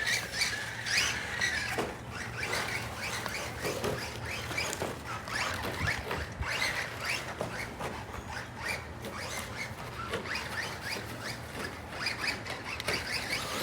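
Electric RC rally car (CEN Racing Ford Puma Rally1, 1/10 scale) being driven in short bursts. Its motor whines up and down many times in quick succession, over a steady low hum.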